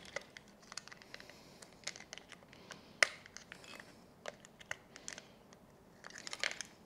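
Plastic body of a Philips GC026/80 battery fabric shaver, switched off, being handled: small clicks and light scratching as the battery compartment is opened and the batteries taken out, with one sharp click about three seconds in.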